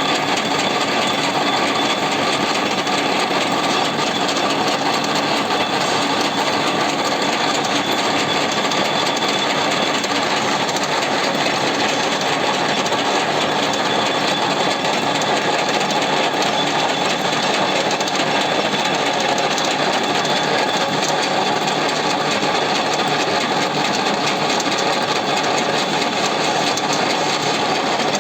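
Gear hobbing machine running: a steady mechanical whir with a few faint constant tones in it, unchanged throughout.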